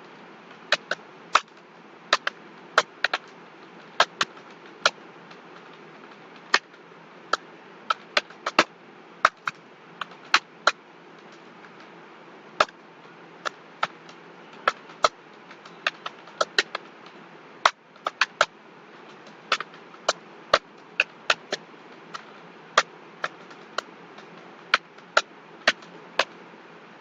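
Computer keyboard keys being typed: sharp, irregular key clicks at about two a second, with uneven gaps, over a steady background hiss.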